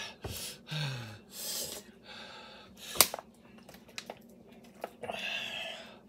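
A series of sharp, hissing breaths and gasps through the mouth from a person whose mouth is burning from an extremely hot chili chip. A single sharp click about three seconds in.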